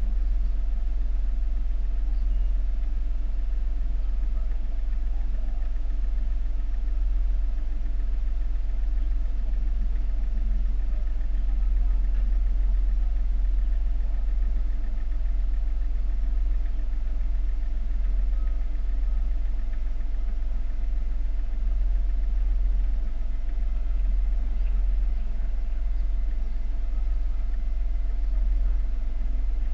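A stopped Smart car's engine idling steadily, heard from a camera mounted on the car, mostly a low rumble with a constant hum above it.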